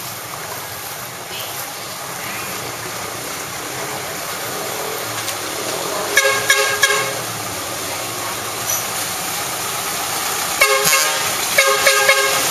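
Vehicle horn honking in two bursts of short toots, one about halfway through and another near the end. Underneath is the steady rush of a dump truck and motorbikes driving through floodwater.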